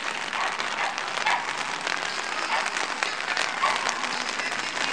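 Steady rain pattering, a dense crackle of many small drops.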